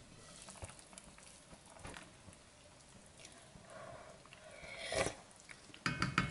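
A braise in an enamelled cast-iron pot simmering with faint bubbling, swelling a little towards the middle. A knock about five seconds in, then a few sharp clicks with a brief ring near the end as a wooden spoon goes against the pot.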